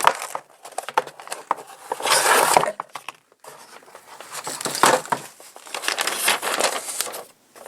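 Paper wrapping crinkling and rustling in several bursts with short pauses, as items are handled and pulled out of the packaging.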